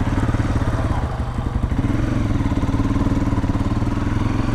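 Honda CRF250L dirt bike's single-cylinder four-stroke engine running steadily, its pitch rising slightly about two seconds in.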